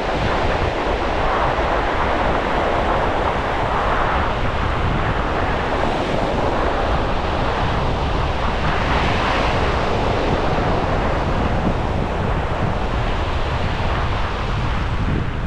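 Small surf breaking and washing up a flat sandy beach in slow surges, with wind rumbling steadily on the microphone.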